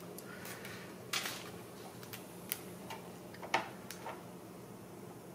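Handling noise: a few light clicks and taps as the model locomotive and a wooden pointer are moved and the model is turned over on its foam cradle, the loudest about two-thirds of the way in, over a faint steady hum.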